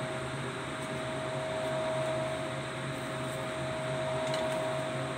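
A motor-driven fan running steadily, a whirring rush with a constant hum and a steady whine. Near the end come a couple of faint clinks as the wire grill basket over the charcoal is turned.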